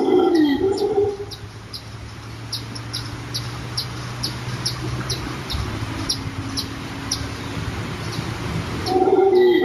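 Animal calls: a run of repeated wavering, arching calls that stops about a second in, then short high chirps repeating a few times a second until the wavering calls start again near the end.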